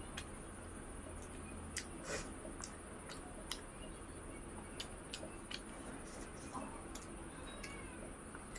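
Close-miked eating: scattered wet mouth clicks and smacks of chewing, at an irregular pace.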